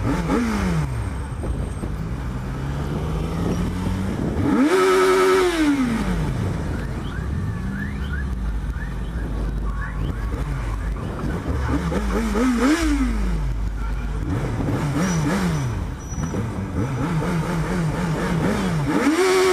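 Yamaha XJ6's 600 cc inline-four engine free-revved in repeated blips, each rev rising and falling in pitch, the highest about five seconds in and a quick string of short blips near the end.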